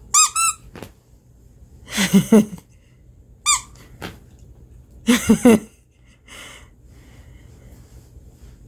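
Squeaker inside a plush fuzzy duck dog toy squeezed in four short bursts of squeaks. The first burst, right at the start, is a quick high run; the pairs about 2 s and 5 s in are lower.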